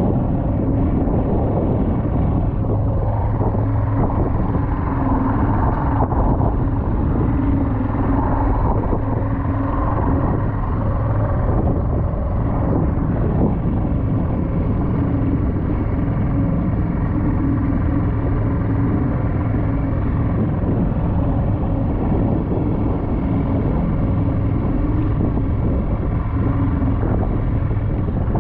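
Outboard motor of an inflatable dinghy running steadily while the boat is under way, a constant hum with water and wind noise mixed in.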